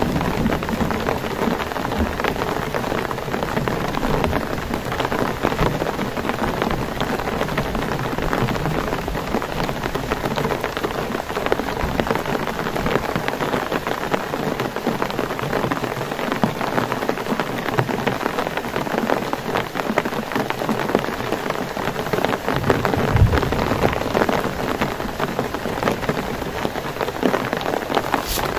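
Heavy rain falling steadily, a dense patter of drops on surfaces. A low rumble of thunder comes late on.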